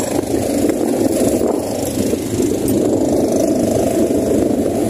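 Wind buffeting the microphone over a choppy sea: a loud, steady, rough rumble.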